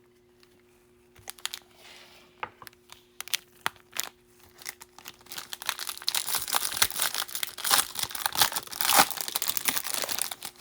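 A baseball card pack's wrapper from a Bowman Jumbo hobby box being torn open and crinkled. Scattered taps and clicks of handling come first; the crinkling and tearing pick up about five seconds in.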